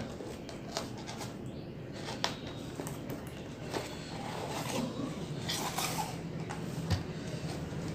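Cardboard box being opened by hand and a plastic toy helicopter lifted out of it: rustling of the cardboard with scattered light taps and clicks, and one louder knock near the end.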